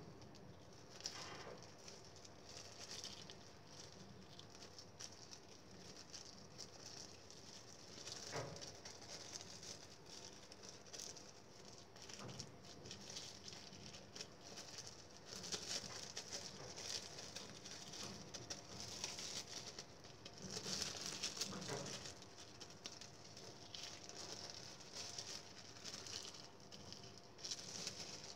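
Faint, continual crinkling of a plastic bag worn over the hand, with soft pats and scrapes of a plastic spatula, as grated cassava dough is pressed and smoothed around a palm-sugar filling.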